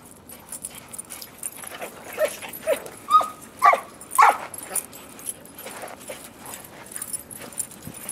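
Dogs at rough play, giving a quick run of short yips and play barks, the loudest between about three and four and a half seconds in.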